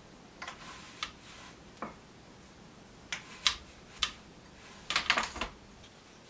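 Wooden rigid heddle loom knocking and clacking as the heddle is worked and beaten against the weft: scattered knocks about a second apart, with a quick run of clacks about five seconds in.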